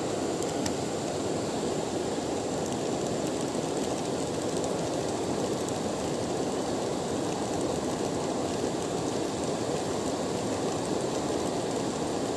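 Steady rush of river water flowing over rocks and shallow riffles, an even, unbroken rumble.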